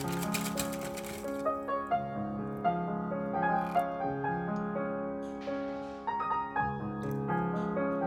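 Background piano music. A run of faint, quick clicks sits under it for about the first second.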